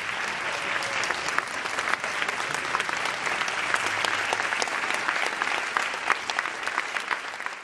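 Large audience applauding steadily, a dense mass of hand claps that stops suddenly at the very end.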